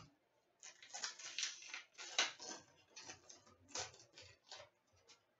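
Hockey trading cards being handled and slid past one another, a run of quick, faint papery flicks and rustles.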